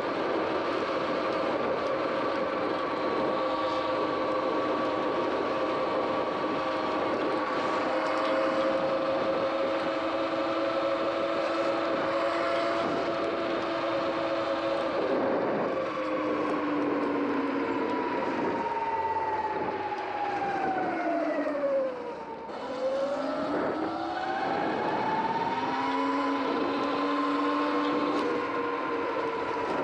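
Sur-Ron X electric dirt bike's motor whine at cruising speed over a steady rush of wind and tyres on a wet road. About two-thirds of the way through, the whine falls in pitch as the bike slows almost to a stop, then climbs again as it speeds back up.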